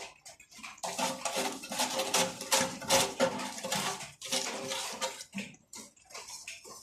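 Irregular splashing and clattering, a rapid string of sharp knocks and sloshes.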